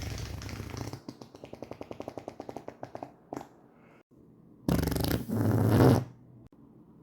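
Farts: a long fart that breaks into a rapid sputtering flutter, about ten pops a second, dying out around three seconds in. After a short pause comes a second fart, louder and lasting over a second, the loudest sound here.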